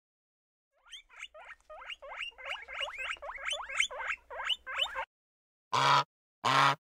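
Animal calls: a quick run of high, squeaky chirps, about three a second, for about four seconds, then two longer, lower calls about a second apart.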